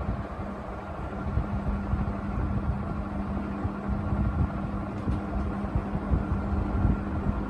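National F-560A1 56-inch industrial ceiling fan running, its motor giving a steady, even hum, with the rush of its airflow buffeting the microphone.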